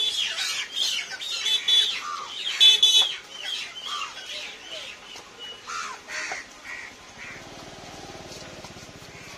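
Birds calling and squawking in quick, overlapping short cries. From about two-thirds of the way through, a steady, fast rasping scrape takes over as a knife scales a carp on a wooden block.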